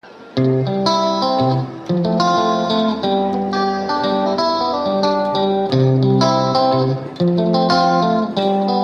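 Background music led by guitar, starting abruptly after a moment of silence, with a steady beat.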